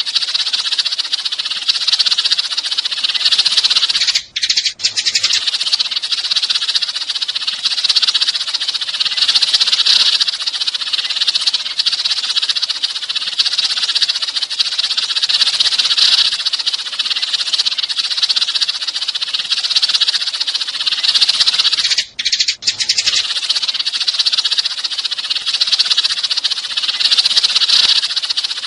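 A flock of sparrows chattering and chirping in a dense, unbroken stream of overlapping high calls, with two brief breaks, about 4 seconds in and again about 22 seconds in.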